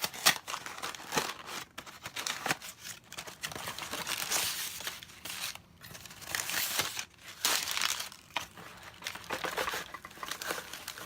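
Paper packing crumpling, crinkling and tearing as a mailed package is pulled open by hand, in irregular rips and crackles.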